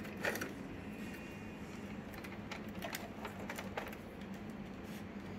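Scattered light clicks and taps of hands fitting the print head and its cable into the carriage of an opened Epson L210 ink tank printer, over a steady low hum.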